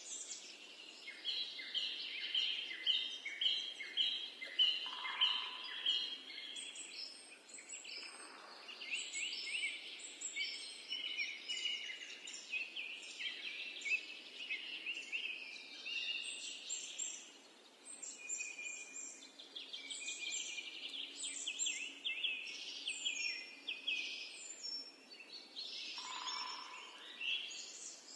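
Several birds singing and chirping, with rapid trills of high notes overlapping over a faint background hiss.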